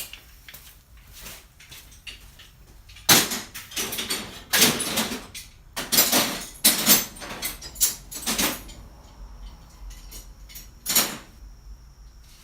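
Steel C-clamps clanking against one another as they are picked up off a pile and put away: a run of metal clatters over several seconds, then one more near the end.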